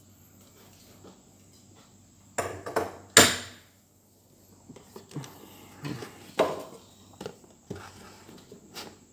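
Handling clatter as a stainless-steel kitchen scale is fetched and picked up. A cluster of sharp metallic clanks comes about two and a half to three seconds in, the loudest with a short ring, followed by scattered lighter knocks.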